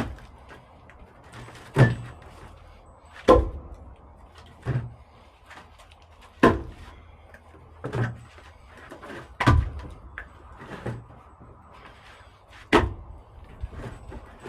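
Heavy wooden thunks of firewood being worked, one about every one and a half seconds, about nine in all.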